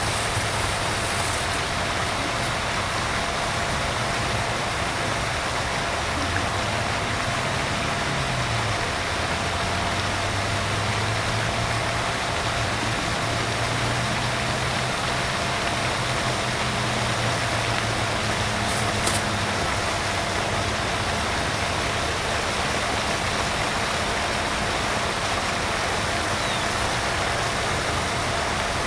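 Steady outdoor rushing noise with a low hum that wavers slightly in pitch, and no distinct events.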